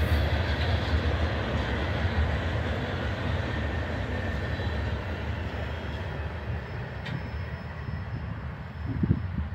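Hopper cars of a loaded stone freight train rolling past, their steel wheels rumbling on the rails. The rumble slowly fades as the last cars pass and roll away.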